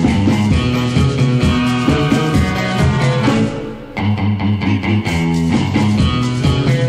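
Rock music with guitar and bass; it thins out briefly about three and a half seconds in, then comes back in full.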